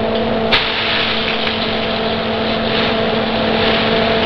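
Chuck roast searing in hot oil in a skillet: a loud, steady sizzle, with a steady hum underneath and a short click about half a second in.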